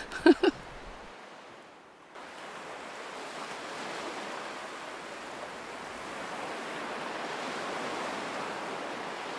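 Ocean surf washing onto the beach, an even rush that starts abruptly about two seconds in and slowly grows louder.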